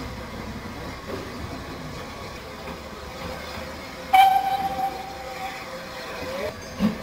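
Steam locomotive whistle giving one steady blast of about a second and a half, starting about four seconds in, over a steady background of station noise.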